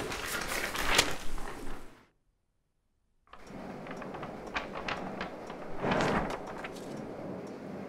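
Cartoon sound effects of loose paper sheets: a loud rush of air and fluttering paper with sharp clicks that cuts off abruptly about two seconds in. After a second of silence a quieter hiss returns, with scattered light ticks and rustles and a brief louder swell of paper rustling near six seconds.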